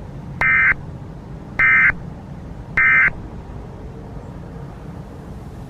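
Emergency Alert System end-of-message signal: three identical short bursts of SAME digital data tones, each about a third of a second long and a little over a second apart, marking the end of the alert.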